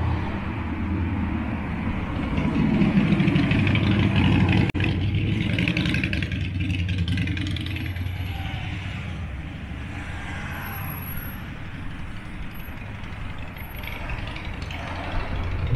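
Street traffic: a motor vehicle passes close by, its engine and tyre noise loudest in the first few seconds and then fading into a steady traffic hum, with a sharp click just before the middle.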